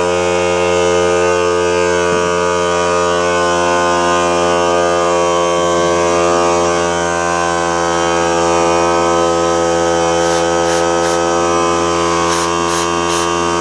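Small portable electric air compressor running steadily, its motor and pump filling the tank with a loud, even hum.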